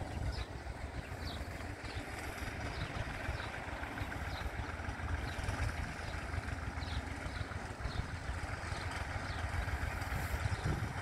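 IMT 558 tractor's diesel engine running steadily under load as it pulls a three-furrow plough. Short high chirps recur throughout.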